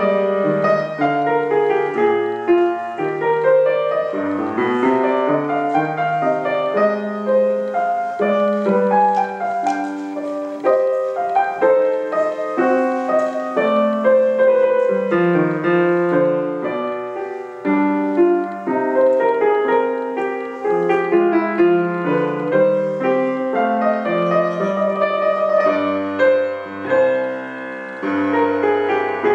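Grand piano played without a break: a continuous run of melody and chords, many notes sounding over one another.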